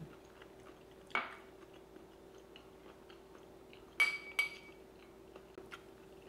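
A fork or other cutlery clinking against a plate: a softer clink about a second in, then two sharp ringing clinks close together about four seconds in. Faint chewing between them.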